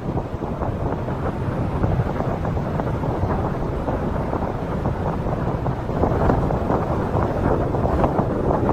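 Loud, steady low rumbling noise, heaviest in the bass, with no distinct events.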